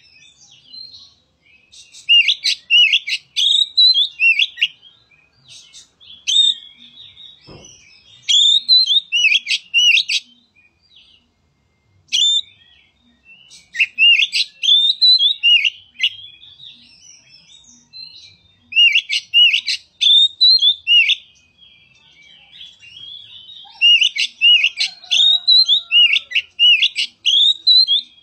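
Oriental magpie-robin singing in repeated phrases of quick, rising and falling whistled notes, with short pauses between phrases. Its song copies the call of a sooty-headed bulbul.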